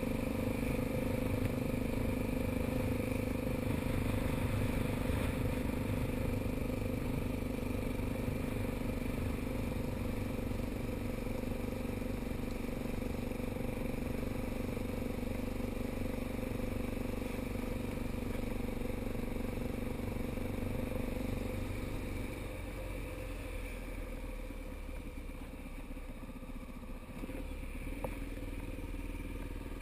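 Motorcycle engine running steadily as the bike rides along, heard up close from the bike itself. About two-thirds of the way through, the engine note drops and gets quieter as the bike slows. Near the end there is a single short click.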